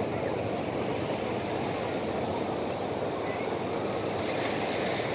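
Ocean surf breaking on a sandy beach: a steady, even rush of wave noise.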